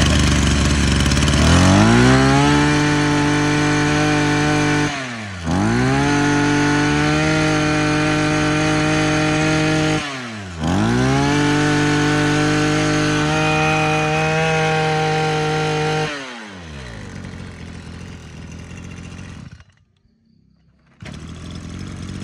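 Maruyama 26cc two-stroke brush cutter engine idling, then run up to high speed. The throttle is eased off and reopened twice, and it drops back to idle before cutting out near the end.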